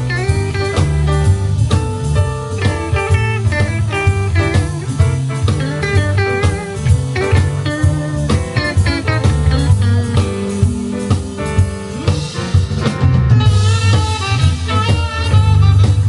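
Small live band playing a bluesy tune: upright bass line and drum kit under keyboard and guitar-like melodic lines, with the cymbals brighter about twelve seconds in.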